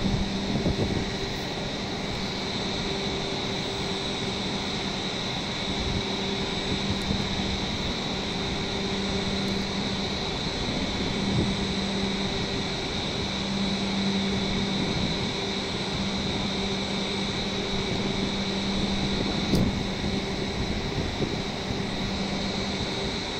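A W7 series Shinkansen standing at a station platform, its air-conditioning and onboard equipment running with a steady hum. Over the hum there is a constant high whine, and a low drone that comes and goes. There is a sharp click about twenty seconds in.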